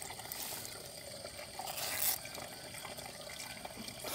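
Water trickling and dripping while a hand rustles through a wet mesh frog trap, with a short louder rustle about two seconds in.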